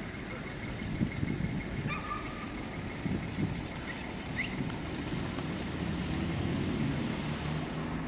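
Steady outdoor hum of a city square: distant traffic and people murmuring, with a couple of short faint bird chirps about two and four and a half seconds in.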